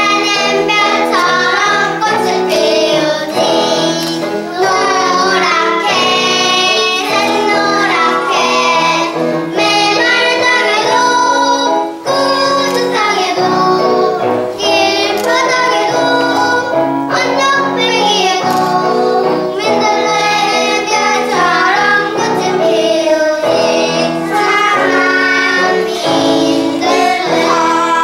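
A group of young children singing a song together, continuously and loudly.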